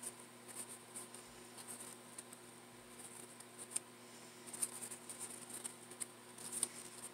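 Faint, irregular rustling and small scratchy ticks of satin ribbon petals being handled and pressed into place between the fingers as a layer of a ribbon flower is positioned.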